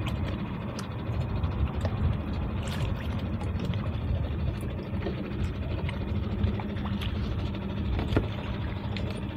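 An engine running steadily with an even low hum, with light clicks scattered through.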